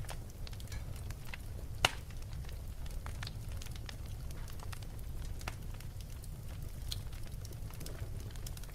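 Wood fire crackling in a fireplace: a low steady rumble with scattered small pops, and one sharp, loud pop about two seconds in.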